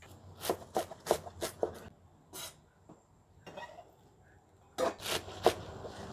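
Kitchen knife cutting water spinach (kangkung) stems: a series of short, sharp, irregular cuts in two clusters with a pause between.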